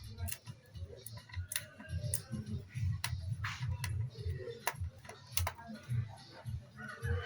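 Irregular small clicks and light knocks of a screwdriver and loose metal and plastic parts being handled as screws are taken out of a laptop motherboard.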